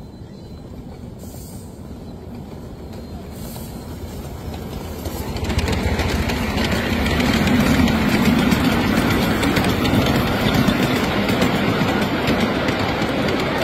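Ride-on live steam miniature train passing close by: steel wheels rumbling and clacking along the rails. It grows louder as the locomotive reaches the spot about five seconds in, and stays loud as the loaded riding cars roll past.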